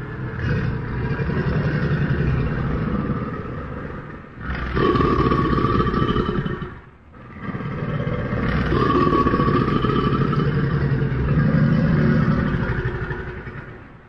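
American alligator growling: long, low, rumbling growls in three stretches, with short breaks about four and seven seconds in.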